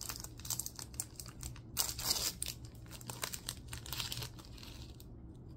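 A crinkly snack packet, likely of rice crackers, being crumpled and torn open by hand: a run of dense crackles with a louder rip about two seconds in, dying down about five seconds in.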